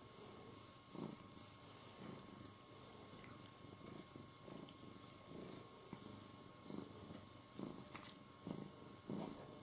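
Domestic cat purring faintly, a soft rhythmic rumble that swells and fades with each breath.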